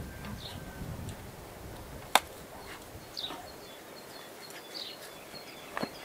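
A trowel picking and scraping old mortar and dirt from between the stones of a stone wall, with two sharp knocks of metal on stone, about two seconds in and near the end. Small birds chirp in the background.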